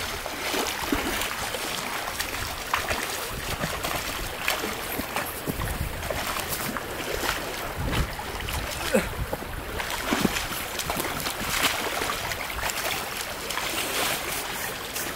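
Steady rush of a small creek's flowing water mixed with wind on the microphone, with a few scattered faint clicks and knocks.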